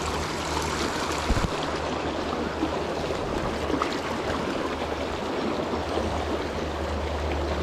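Small river flowing steadily, an even rush of water over rocks, with a short knock about a second in.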